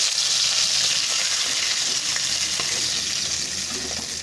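Tilapia pieces frying in hot oil in an iron karahi, giving a steady sizzling hiss. A few faint scrapes and taps of a spatula come in the middle as the fried fish are lifted out of the pan.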